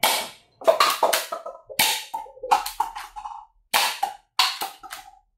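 Toy Glock gel blaster pistol firing in quick runs of shots, over a dozen sharp snaps, several followed by a short ringing tone.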